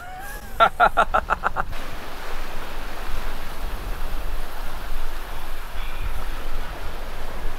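Steady rush of wind and sea water around a sailing yacht moving under sail. A short burst of voice sounds in the first couple of seconds.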